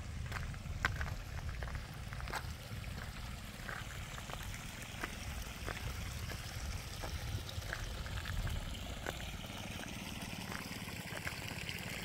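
Water trickling and running, with scattered light clicks over a low rumble that eases near the end.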